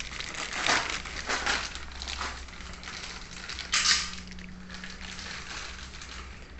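Clear plastic bag crinkling and rustling in irregular bursts as a riflescope wrapped in it is handled, loudest about four seconds in.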